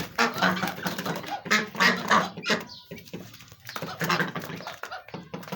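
White domestic ducks quacking in rapid runs of harsh calls, with a short lull about three seconds in.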